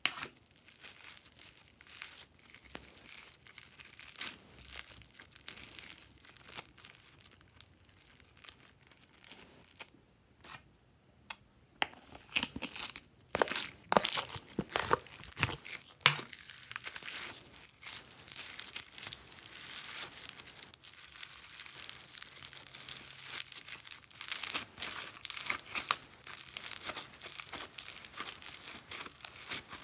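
Foam-bead slime being kneaded, squeezed and stretched by hand, giving a dense run of sticky crackling and popping, with a brief lull about ten seconds in.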